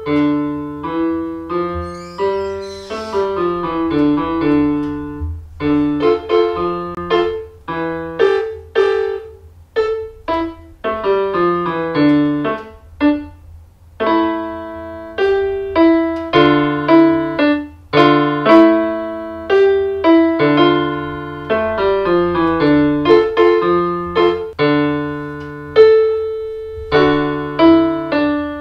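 Portable electronic keyboard played with a piano sound: a simple two-handed tune, single melody notes over low bass notes, played note by note with brief pauses between phrases.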